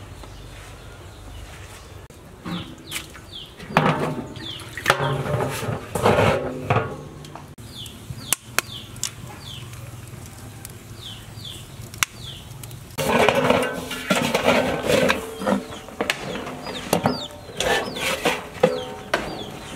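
Knocking and clattering of firewood fed into a wood-fired stove and of an aluminium basin, used as a lid on a large wok, being lifted off with metal tongs; the clatter is loudest near the end. Behind it, short falling chirps from chickens repeat in the first part.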